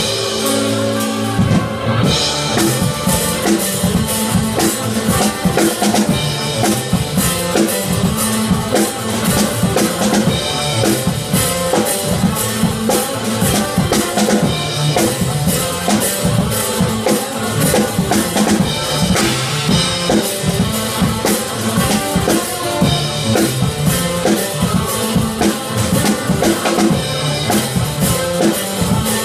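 Acoustic drum kit played in a busy, continuous groove: rapid snare and rim hits, bass drum and cymbals. A pitched backing track runs underneath the drums.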